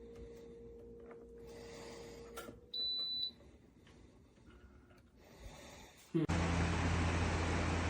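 Dreo Lynx S smart table fan: a single high electronic beep about three seconds in, then about six seconds in the fan starts up with a loud, steady rush of air over a low motor hum.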